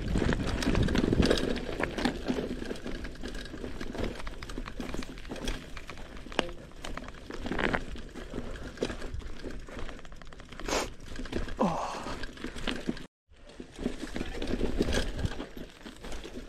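Mountain bike tyres rolling over loose stones and dry pine needles, with the bike rattling and clicking over bumps, picked up by a chest-mounted action camera. The sound cuts out briefly near the end.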